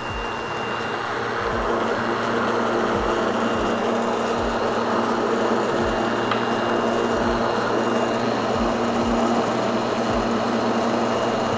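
Electric immersion blender running steadily at one even pitch, its blade submerged in hot cocoa (chocolate melted into milk and water) in a stainless steel milk pitcher, frothing the drink.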